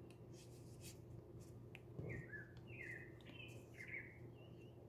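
Faint bird chirps: several short calls about two to four seconds in, over soft clicks and rustles of folded paper units being pushed together.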